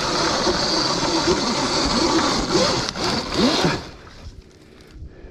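Sur-Ron X electric dirt bike climbing steep dirt single track under heavy throttle: motor whine mixed with chain and tyre noise over the trail. The noise cuts off about four seconds in as the bike stops.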